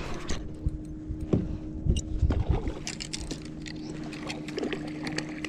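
A kayak under way at sea: water sloshing and knocking against the hull, with scattered small clicks and knocks, over a steady low hum.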